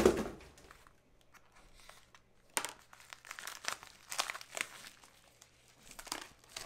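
A thump right at the start, then a padded plastic bubble mailer crinkling and tearing in several short bursts as it is pulled open by hand.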